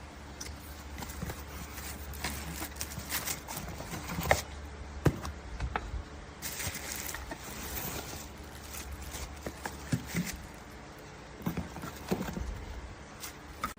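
Handling noise: irregular clicks, taps and knocks of hard objects being moved and set down, over a steady low hum, with a short rushing hiss about halfway through.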